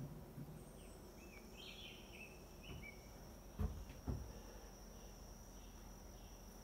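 Quiet outdoor ambience: an insect's steady high trill runs throughout, with a few short chirps in the first half. Two dull knocks about three and a half and four seconds in are the loudest sounds.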